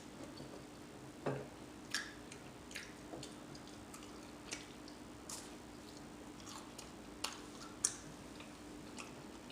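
Close-up chewing and lip smacking while eating beef and cheese taquitos: soft, scattered wet mouth clicks, roughly one a second.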